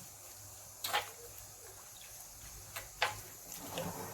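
A few scattered light clicks and knocks of kitchen utensils against a pot or bowl, the loudest about a second in and again about three seconds in.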